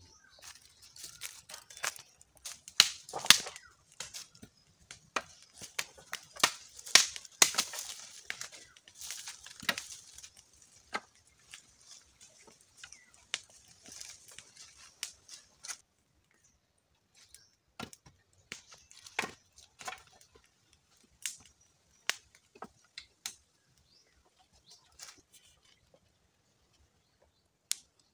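Fire of sticks and dry leaves crackling and popping: a dense run of crackles over a hiss for about the first half, then scattered single pops.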